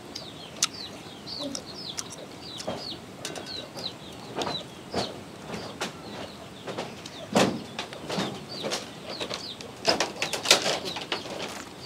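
Small birds chirping, short high falling chirps several times a second, with scattered knocks and clatter, the loudest about seven and ten seconds in.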